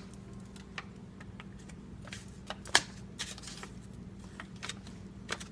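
Scattered light clicks and rustles of food packages being handled and turned over in a refrigerator drawer, with a sharper click nearly three seconds in, over a steady low hum.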